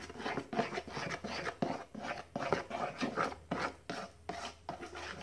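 A hand utensil scraping and stirring through a thin, pourable batter in a plastic mixing bowl, in quick, even strokes about two to three a second.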